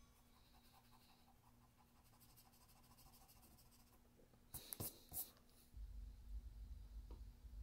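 Pencil scratching on paper in faint strokes, with a few louder, quick strokes about four and a half seconds in. A low rumble comes in near the end.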